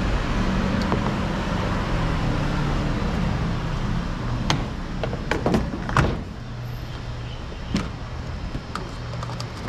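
Self-service petrol pump running with a steady hum during refuelling. Several sharp clicks and clunks come between about four and a half and six seconds in, after which the hum drops to a lower, quieter one.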